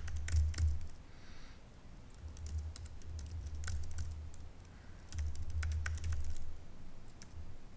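Typing on a computer keyboard: runs of quick key clicks in several short bursts with brief pauses between them.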